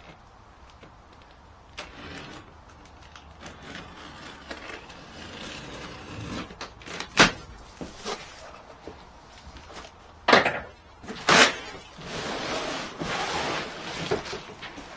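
Cardboard box and packing being opened and handled: rustling and scraping with scattered clicks, and three sharp knocks, the loudest about seven seconds in and two more close together near ten and eleven seconds.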